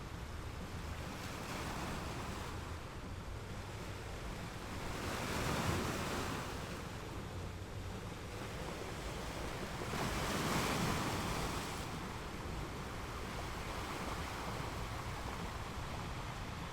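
Ocean surf: a steady wash of waves, with two waves breaking and swelling louder about five and ten seconds in.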